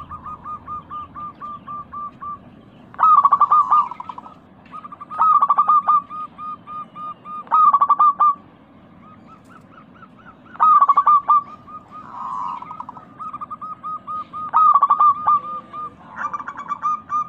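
Local zebra dove (perkutut) cooing: runs of soft, evenly spaced short coos, broken about every two to four seconds by a louder, rapid rolling burst of notes, six such bursts in all.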